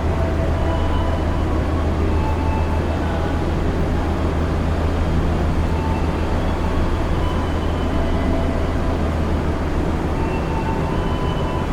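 Madiun Jaya passenger train running on the rails: a steady low hum and rumble with faint, brief high tones here and there over it.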